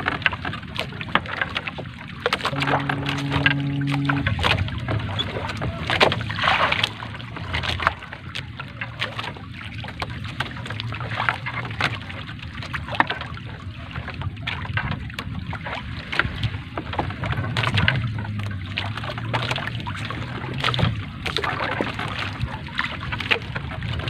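Water lapping and splashing at the side of a small boat while a three-ply fishing net is hauled in by hand over the gunwale, with scattered clicks and rustles of the net. A low steady hum sounds briefly about three seconds in.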